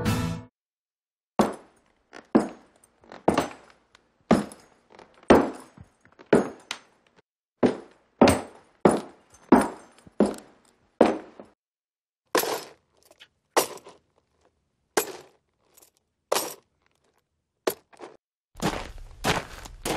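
Boots walking on wooden boards, one step at a time with short pauses between runs of steps, then on paving stones. Near the end, the steps change to boots in sand, with a steadier rumble underneath.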